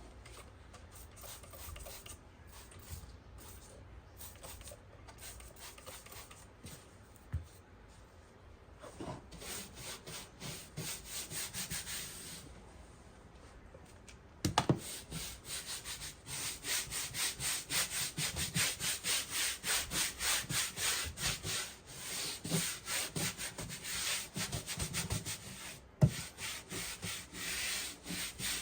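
Rapid back-and-forth rubbing strokes on the wooden speaker cabinet, about three a second. A short run comes about a third of the way in, and a longer, louder run goes from about halfway to near the end. A sharp knock sounds about halfway and another near the end.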